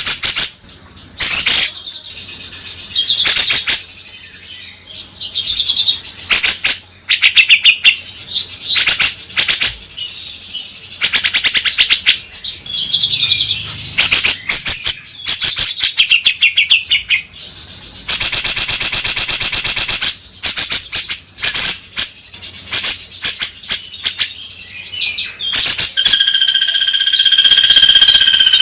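Grey-cheeked bulbul (cucak jenggot) calling: long runs of loud, fast rattling chatter broken by short warbled notes, with a held whistled note near the end.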